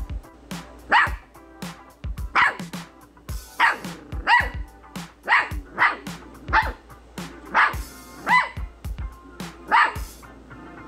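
A small curly-coated puppy barking repeatedly in short, sharp barks, roughly one a second. The trainer reads this barking as conflicted, attention-seeking behaviour.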